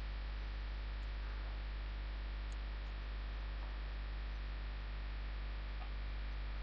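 Steady electrical mains hum with a faint even hiss and no distinct handling sounds.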